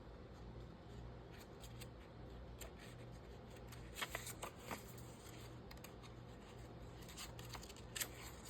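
Sheets of paper being handled and shuffled, with a cluster of short crisp paper sounds about four seconds in and another near the end, over a faint steady hum.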